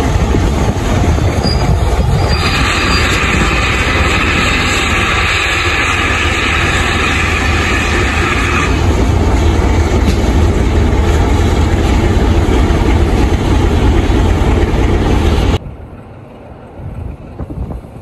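Steam locomotive No. 9351, a GWR 2-6-0, double-heading with 'Manor' 4-6-0 No. 7822, runs slowly along the platform with a loud, steady rumble. A steady hiss comes in a couple of seconds in and lasts about six seconds. Near the end the train sound cuts off sharply to wind on the microphone.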